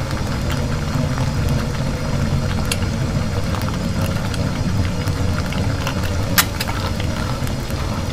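A few sharp clicks of plastic toy food pieces and skewers being handled and set down on a plastic toy grill and tray, the clearest about six and a half seconds in, over a steady low rumble.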